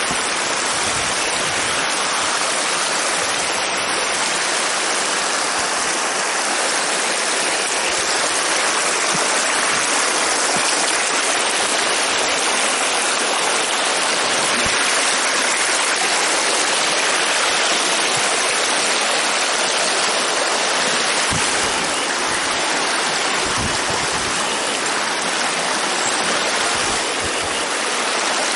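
Water rushing over a beaver dam, spilling through the sticks in a row of small cascades: a steady, even rush.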